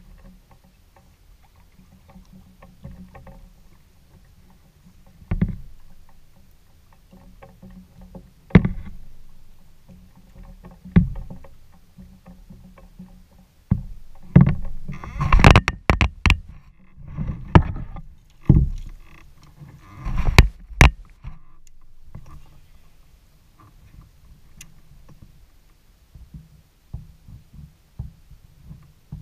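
Kayak paddling close up: single paddle splashes and knocks every few seconds, then a quick run of loud strokes and knocks for several seconds around the middle as the boat turns, over a low steady rumble.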